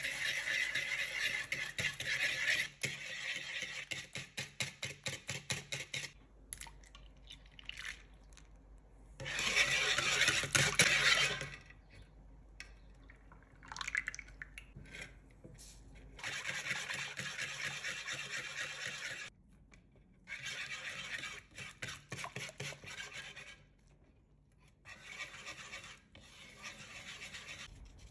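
Wire whisk beating pancake batter in a wooden bowl, in several spells of quick rhythmic strokes with short pauses between.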